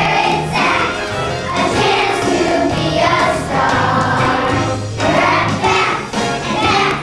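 A chorus of young children singing a song together with instrumental accompaniment and a steady bass line.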